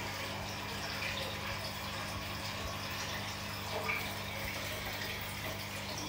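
Steady background hiss with a low electrical hum underneath, the recording's noise floor left after the voice-over ends.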